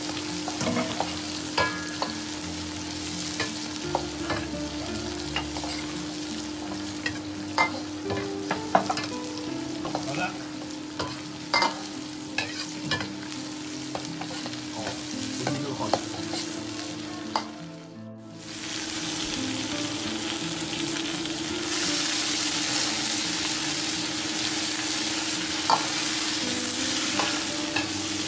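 Metal ladle clanking and scraping against a wok while food sizzles in hot oil during a stir-fry. After a short break about 18 seconds in, the sizzle turns louder and steadier with fewer clanks.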